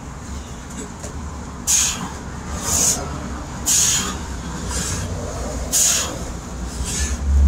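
A man breathing hard, with short, sharp breaths out about once a second during push-ups. Under them runs a steady low rumble of wind on the microphone.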